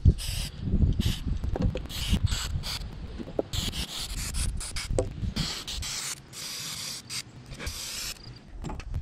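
Aerosol carburetor cleaner hissing out of the can in repeated short bursts, some near a second long, as it is sprayed through a small-engine carburetor to clean it. A sharp knock comes at the start, and handling noises run underneath.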